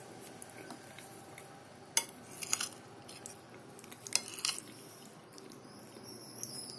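A metal fork clinking and scraping against a plate while cutting a stuffed bell pepper, with sharp clinks about two seconds in and again about four seconds in.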